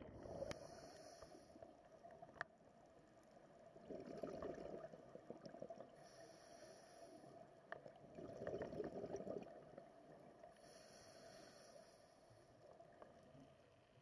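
Scuba diver breathing through a regulator underwater: a hiss on each inhale and a rush of exhaled bubbles, repeating every four to five seconds, with a few faint clicks.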